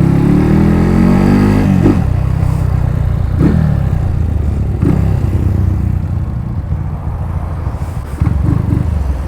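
Single-cylinder four-stroke engine of a modified Honda CG 125 Fan accelerating under way: the engine note rises for about two seconds and drops sharply at an upshift. Two more quick dips follow as it shifts again, then it runs on more evenly and a little quieter.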